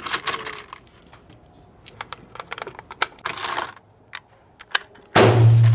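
Light metallic clicks and rattles of firearm handling, then a single loud rifle shot about five seconds in, ringing on afterwards.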